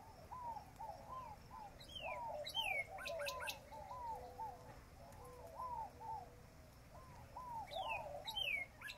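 Birds calling: many short, arching mid-pitched notes overlapping steadily, with a few higher falling whistles about two seconds in and again near the end.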